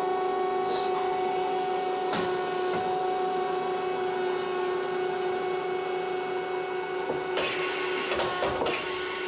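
Metal-spinning lathe running with a steady hum, with a few light clicks and a louder scraping noise for about a second near the end while a muffler head is spun on it.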